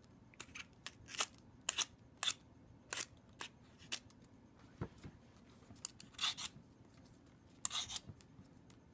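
Handheld vegetable peeler scraping strips of skin off a butternut squash in short, quick strokes at an uneven pace, with a gap about halfway and a soft knock in it.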